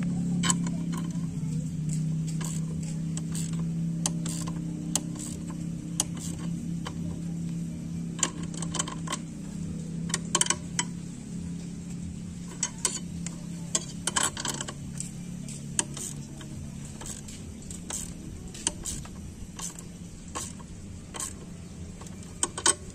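Ratcheting spanner clicking in short irregular runs as it turns the bolts of a homemade puller drawing off a scooter's CVT variator roller boss, with occasional metal clinks. A low steady hum runs underneath and slowly fades.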